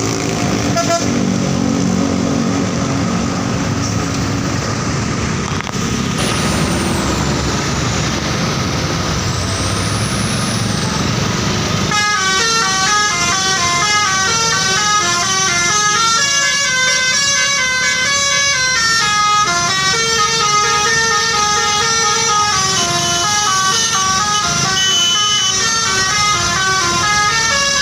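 Bus telolet horn, a set of musical air horns, playing a fast melody of short stepping notes, starting a little under halfway through. Before it, a steady low rumble.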